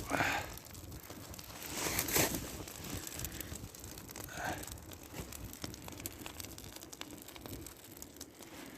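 Small campfire of birch bark and dry birch wood crackling, with irregular sharp pops throughout. A few short, louder rustles come at the start, about two seconds in and about halfway through.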